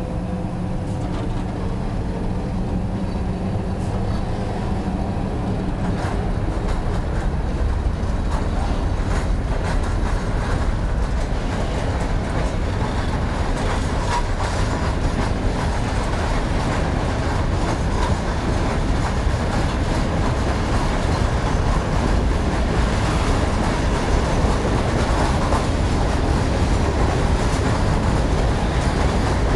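Freight train departing: a Škoda class 181 six-axle electric locomotive hums at first, then a long string of tank wagons rolls past, wheels clattering over the rail joints and growing steadily louder.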